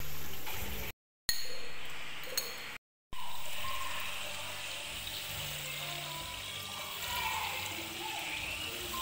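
Hands splashing a fish head about in a basket of water in a sink, with short silent breaks between clips. About three seconds in, a tap starts running into a stainless steel pot: a steady splashing hiss of water filling the pot.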